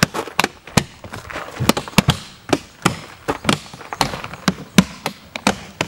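Plastic latches of a Pelican 1780 hard case being snapped shut on the lid: a rapid, irregular series of sharp clicks and knocks.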